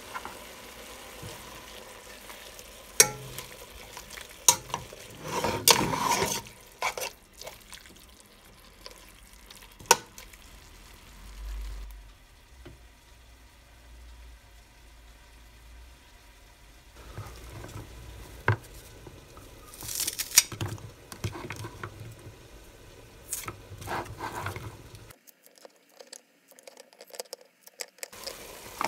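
Home kitchen cooking sounds: sliced bulgogi meat sizzling in a frying pan while it is stirred, with scattered sharp clicks and clatters of utensils and handling. The sound nearly stops for a few seconds near the end.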